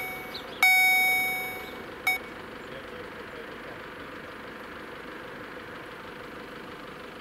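Level-crossing electronic bell (EHL-S10) ringing: one loud ding that dies away, then a last ding cut off short about two seconds in as the signal switches off. After that only a faint steady hum with a low tone remains.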